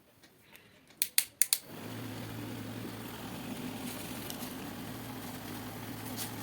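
A few sharp clicks, then a homemade table fan's small electric motor starts and runs steadily with a low hum and whooshing air.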